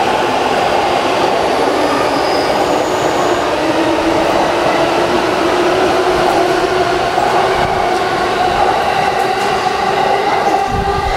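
JR East E233-1000 series electric commuter train pulling out of the station and running close past the platform: a loud, steady rush of wheels on rail and running gear, with a steady hum over it.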